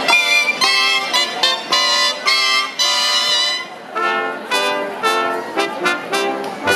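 A cobla playing a sardana: the reedy, shawm-like tenoras and tibles over trumpets, fiscorns and double bass. The music moves in short detached notes, bright and high at first, dropping to lower notes about four seconds in.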